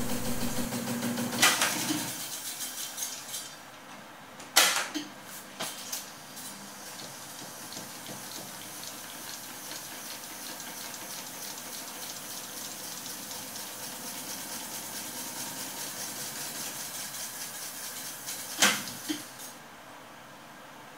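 Akai GX-625 reel-to-reel tape deck fast-winding its tape, a steady whirring hiss from the spinning reels and transport. Clicks of the transport controls come near the start, and a loud clunk about 19 s in marks the reels braking to a stop.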